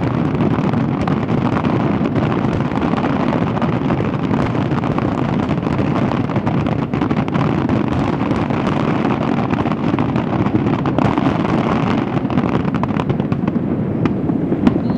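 Fireworks finale: a dense, continuous barrage of overlapping aerial shell bursts and booms, merging into one steady din. It thins out slightly near the end.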